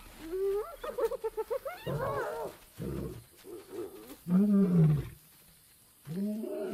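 Spotted hyenas squealing and giggling over an impala kill, then a male lion growling and roaring at them to drive them off: a loud roar about four and a half seconds in and another near the end.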